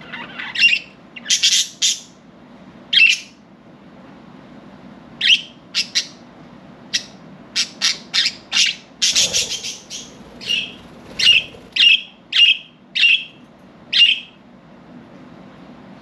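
Budgerigars giving short, sharp chirps and squawks, scattered at first, with a longer rougher burst about nine seconds in, then a run of evenly spaced calls about half a second apart.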